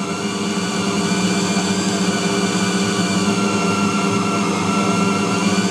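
Tabletop bowl cutter's electric motor running steadily, its blades spinning in the closed bowl to chop pork mince, ice water and egg into a fine sausage emulsion. A steady, even hum with a few higher whining tones over it.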